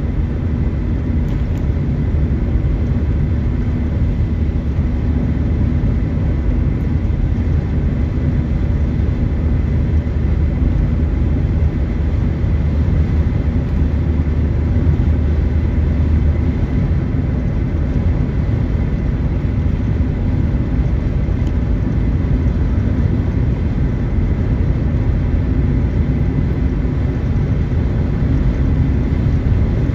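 Inside a car's cabin while cruising on a highway: steady low rumble of engine and tyres on the road.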